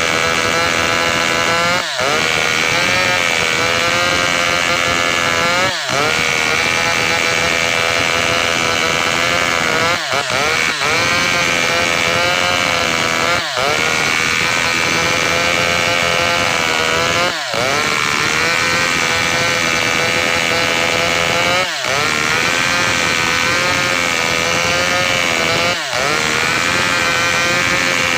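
Two-stroke Maestro chainsaw running flat out while cutting gmelina (white teak) wood, its engine speed dipping briefly about every four seconds and picking straight back up.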